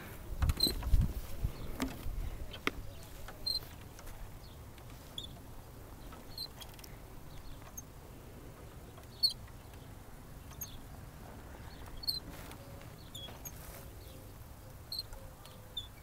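A playground swing squeaking at its hangers as it swings: a short high squeak about every three seconds, with a few fainter squeaks between. Low rumble in the first couple of seconds.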